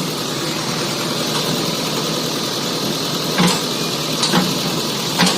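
JCB digger's diesel engine running steadily at close range, with three sharp knocks about a second apart in the second half.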